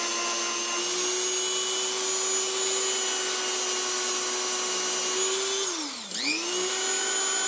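Dremel rotary tool running at high speed with a steady whine while a small wheel polishes a stainless steel revolver part. About six seconds in the motor spins down and immediately spins back up to speed.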